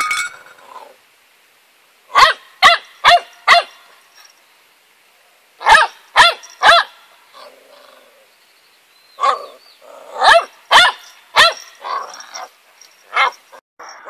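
Puppy barking in short, high-pitched yaps: four quick barks, a pause, three more, then a looser run of barks and yips toward the end.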